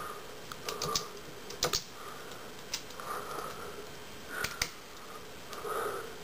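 Computer keyboard keys pressed slowly and unevenly, a few scattered clicks, as a name is typed one key at a time.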